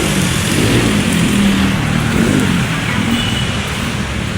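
Steady running noise of a road vehicle's engine with traffic noise, a low hum under an even rush.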